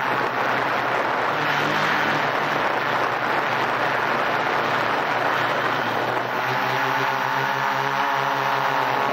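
A quadcopter's four electric motors and propellers running in flight, heard from a camera mounted right under the frame. It is a steady, loud rushing whir with a hum that shifts in pitch as the motor speeds change, growing strongest about six seconds in.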